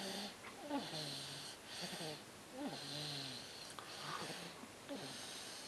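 Quiet snoring: short, wheezy snores about once a second, each with a brief low buzz.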